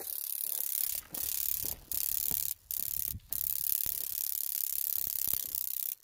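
Grasshopper making a loud, rapid clicking crackle, broken by several brief pauses in the first half.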